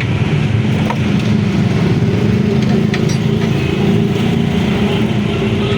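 A steady, low mechanical drone of a running engine or motor.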